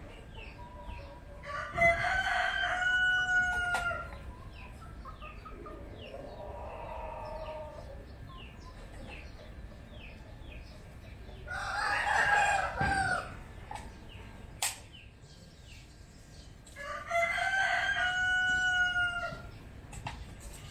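A rooster crowing three times: once near the start, once about halfway, and once near the end, each crow lasting one to two and a half seconds.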